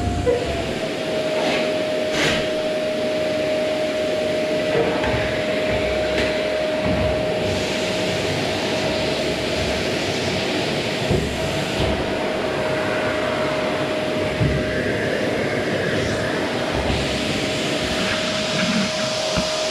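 Vacuum cleaner running steadily, its motor giving a constant whine over the rush of air, with a few sharp knocks and irregular low bumps as it is pushed about.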